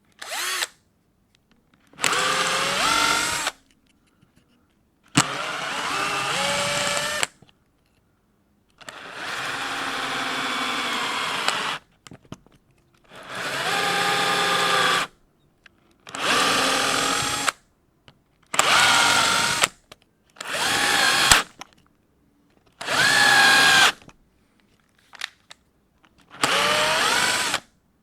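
Power drill driving self-tapping screws into timber: about ten separate runs of one to three seconds, each with the motor's whine rising in pitch as it spins up and the screw bites, broken by short silences between screws.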